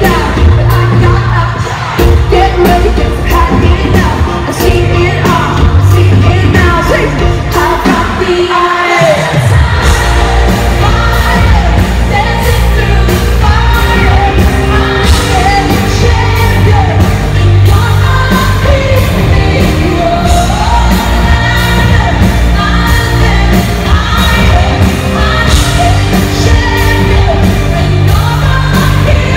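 Live pop concert music played loud through an arena sound system: a female lead vocal over a heavy electronic beat with deep bass. About eight seconds in, the bass drops out for a moment, then the full beat comes back in.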